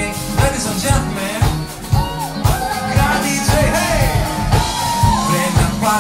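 Live band playing a song: a steady drum-kit beat with bass and electric guitar, and a voice singing a gliding melodic line over it.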